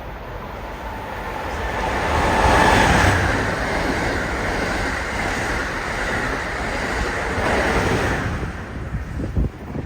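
Train passing through the station at speed: a steady rushing noise that builds to its loudest about three seconds in, holds, then falls away near the end, with wind buffeting the microphone.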